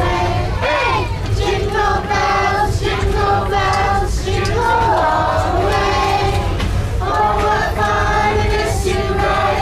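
A group of passengers, children's voices among them, singing a Christmas carol together over a steady low rumble.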